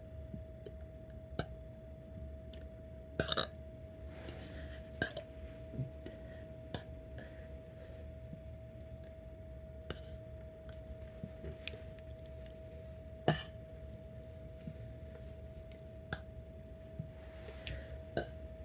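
A person letting out small, short burps at irregular intervals, one sharper than the rest past the middle, over a steady faint hum.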